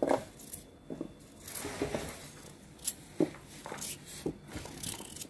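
Small kitchen knife scraping and paring the skin off a raw carrot: short, irregular scrapes a second or so apart.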